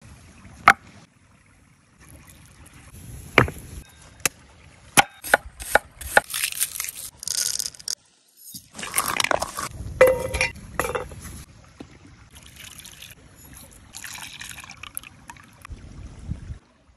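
Close-up food-preparation sounds on stone and wooden bowls: a string of sharp knocks and clicks, then rustling pours as dry ingredients slide off a cleaver into a wooden bowl. There is a brief silent break about eight seconds in.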